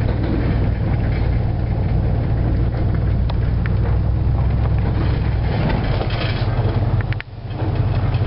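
Car or pickup engine and tyres on a dirt road, heard from inside the cab: a steady low engine drone with road rumble and a few sharp clicks. The sound briefly drops about seven seconds in.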